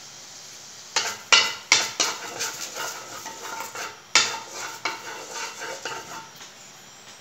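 Wooden spatula scraping and knocking around the inside of an empty metal wok that is heating on the stove, in quick strokes. The strokes start about a second in, come again in a louder flurry about four seconds in, and tail off near the end.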